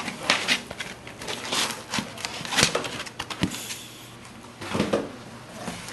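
Foam packing inserts being pulled out of a cardboard box, with a run of scrapes, rustles and knocks. There is a quieter stretch of rubbing a little after the middle.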